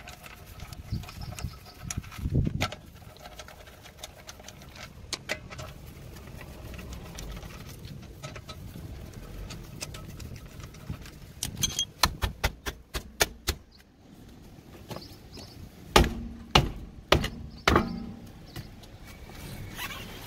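Scattered sharp metallic clicks and knocks from hand tools working on a car's wheel and brake, with a quick run of clicks a little past halfway and a few louder knocks near the end.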